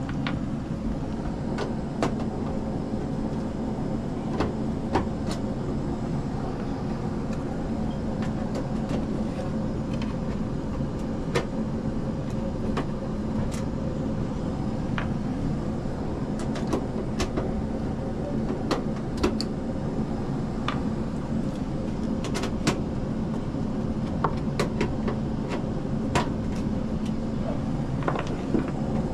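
Indoor air-conditioning unit running with a steady hum, with scattered sharp clicks and taps of a screwdriver working the screws of its metal access panel.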